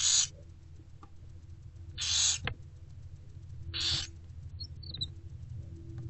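Barn owlets giving their hissing food-begging calls, three short hisses about two seconds apart, with a sharp click after the second, over a steady low hum.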